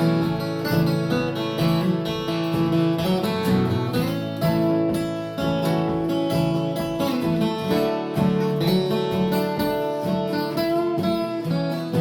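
Acoustic guitar strummed steadily through an instrumental break between sung verses, with held melody notes over the chords.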